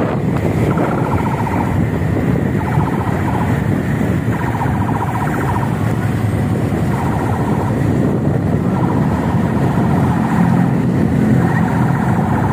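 Steady road noise of moving vehicles, engines and tyres, with wind rushing over the microphone, heard from a vehicle driving alongside a pickup truck.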